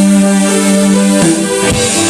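Keyboard playing long held chords through the PA during a rock band's sound check; the chord changes a little past halfway, and a couple of drum hits come in near the end.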